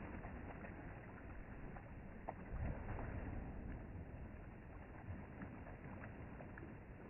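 Pool water splashing and sloshing as a dog paddles through it, with scattered small splashes and drips over a steady wash of moving water.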